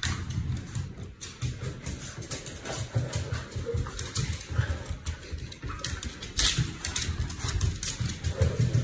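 Small dog dashing around on a hardwood floor: many quick clicks and patters from its claws and feet, over rapid low grunting.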